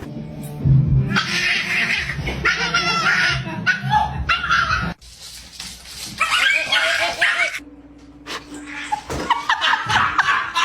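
A dog yipping and whimpering in short bursts, cut off abruptly about halfway through.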